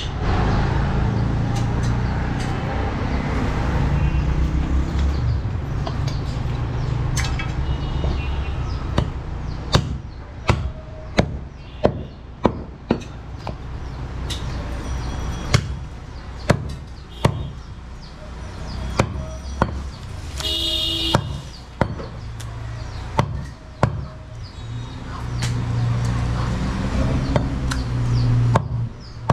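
Butcher's cleaver chopping through goat carcass on a wooden chopping block: a run of sharp strikes roughly once a second, mostly in the middle, over a steady low rumble. A short high-pitched tone sounds once about two-thirds of the way through.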